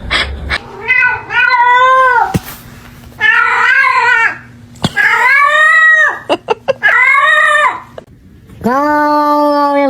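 A cat meowing in long, drawn-out calls, about five in a row with short pauses between them, each call wavering up and down in pitch. The last call starts near the end and holds a steadier pitch.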